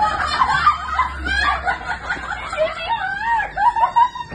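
Several people laughing and squealing in high, excited voices.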